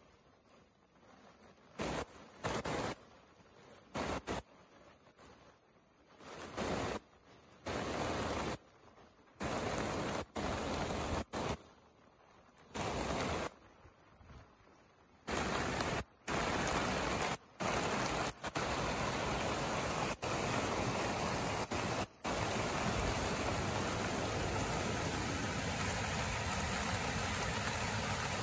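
Muddy flood water rushing in a swollen river, a steady rushing noise. For the first half it cuts in and out abruptly; from about halfway on it holds steady.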